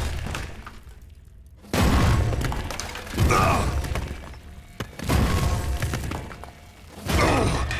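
Cartoon sound effects of a large robot creature stomping on a rocky cave floor: four heavy crashing thuds with rumble, each fading out, mixed with rocks breaking and falling, over background music.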